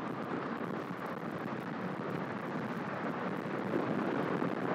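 Wind rushing over a helmet camera's microphone on a bicycle rolling down a paved street, with tyre noise on the tarmac; a steady rush that grows a little louder toward the end.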